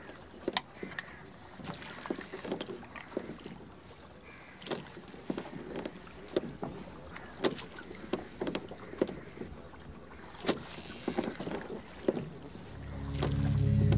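Wooden rowboat being rowed: irregular knocks and creaks of the oars working against the boat, with water sounds from the strokes. Near the end, steady droning music swells in and grows loud.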